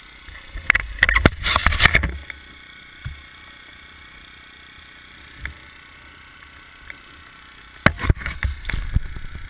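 Bursts of rumbling wind and knocking handling noise on a helmet or bike-mounted action camera's microphone, once about a second in and again near the end, with a faint steady hiss between.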